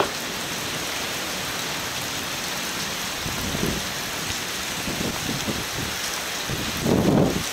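Steady rain falling in a thunderstorm. A few faint low rumbles sit over it, and a brief louder rumble comes near the end.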